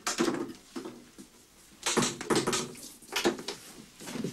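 Wooden doors and cupboard doors being opened and shut in a hurried search, with a few sharp knocks and bumps: one at the start, one about two seconds in and one about three seconds in.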